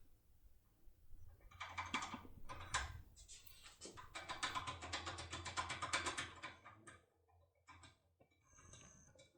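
TESA TX80 foil impression lockpick being worked in a pin-tumbler lock cylinder, its metal parts rattling against the pins in a rapid run of small clicks. The clicking thins to a few scattered clicks near the end.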